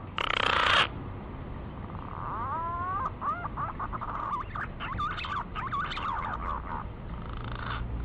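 Punai (green pigeon) lure call: a run of whistled notes that slide up and down, starting about two seconds in. A loud harsh rasping burst cuts off within the first second, and a buzzy rasp comes near the end.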